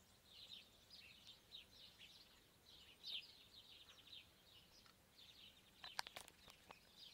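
Faint dawn chorus of small birds, many short chirps overlapping. A few sharp clicks about six seconds in.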